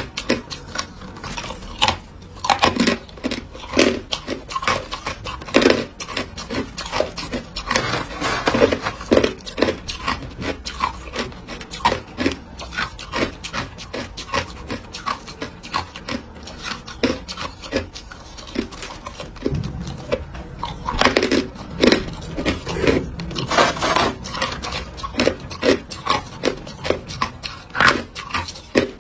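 Hard clear ice chunks being bitten and chewed: rapid runs of sharp cracks and crunches, thickest about two to ten seconds in and again about twenty to twenty-five seconds in, with sparser crunches between.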